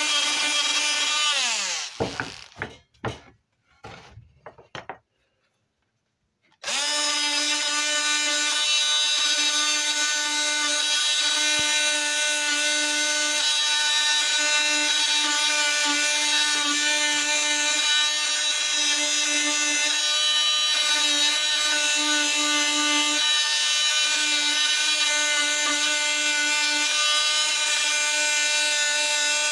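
Small electric sander running with a steady high-pitched motor whine while sanding the wood fibres off carved wood. It winds down with a falling pitch about two seconds in, stops for a few seconds with a few brief noises, then starts up again about six and a half seconds in and keeps running steadily.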